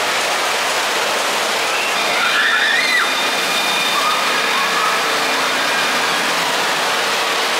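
Steady rush of flowing and splashing water from the water park's slides, with faint high voices calling out briefly between about two and five seconds in.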